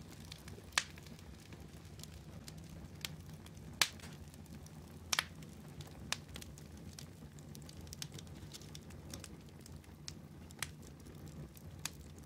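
Wood fire of split logs burning, crackling with irregular sharp pops, the loudest about a second in, near four seconds and just after five seconds, over a steady low rumble.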